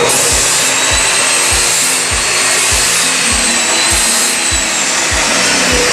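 Handheld electric power tool running steadily: a loud rushing hiss with a high motor whine that drifts slightly in pitch, switched on suddenly at the start. Background music with a steady low beat plays underneath.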